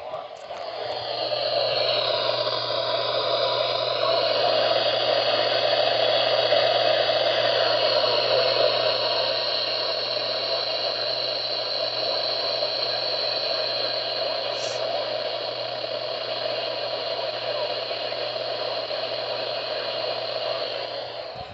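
Radio receiver hissing with static from a weak, distant signal, with a low hum and several steady whistling interference tones. Some of the tones slide in pitch over the first few seconds before settling.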